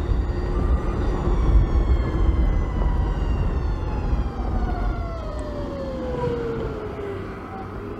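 BMW CE 04 electric scooter's motor whine, a set of thin tones falling steadily in pitch as the scooter slows, over a heavy low rumble of wind on the microphone.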